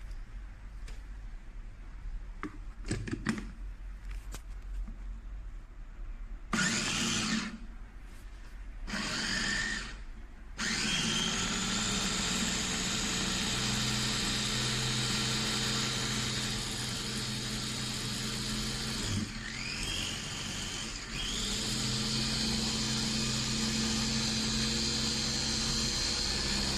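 Gaabor 2L electric meat grinder/food processor motor, pulsed twice briefly, then running steadily after a rising spin-up. It stops and restarts briefly about two-thirds of the way through. A few light clicks come before it, from handling the appliance.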